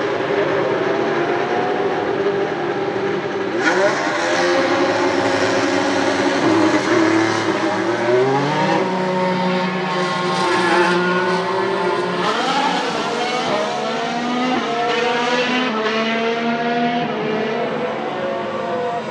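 Formula 1 Renault RS18's 1.6-litre turbocharged V6 hybrid engine accelerating hard: the pitch climbs and drops back several times as it changes up through the gears.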